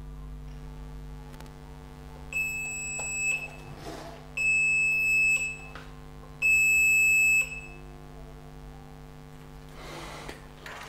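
Audi TT Mk1 instrument cluster powering up on a bench rig, its built-in warning buzzer sounding three high beeps of about a second each, evenly spaced, over a steady electrical hum.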